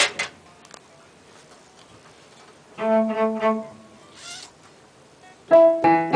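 Instruments of a small ensemble sounding briefly between takes: a bowed-string chord held for about a second near the middle, then a sudden, louder chord that rings out and fades near the end.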